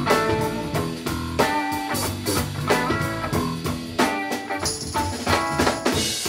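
Live band playing a funk groove: drum kit keeping a steady beat under electric bass and electric guitar.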